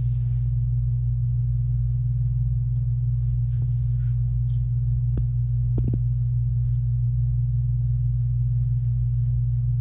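Steady low hum, with a few faint light clicks in the middle and a brief faint hiss near the end, as battered fish pieces are handled in a wire deep-fryer basket.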